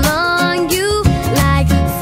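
Background music: a bright pop song, a wavering melody line over a steady bass.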